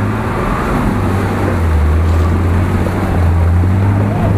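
Engine of a 4x4 off-road vehicle running at steady revs, a deep, even drone.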